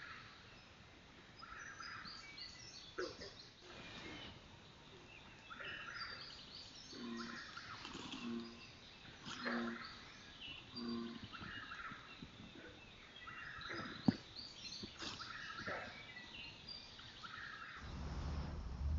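Night swamp chorus of frogs and toads: many short calls scattered throughout, with a run of lower repeated double notes in the middle. A low steady rumble comes in near the end.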